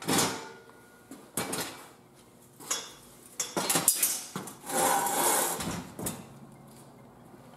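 Metal frame of a ladder tree stand clanking as it is handled and shifted: several sharp knocks spread over the first four seconds, then a longer rattle around five seconds in.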